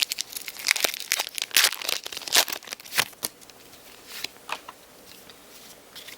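Marvel VS System booster pack wrapper being crinkled and torn open by hand, with dense crackling for about three seconds, then only a few light crinkles.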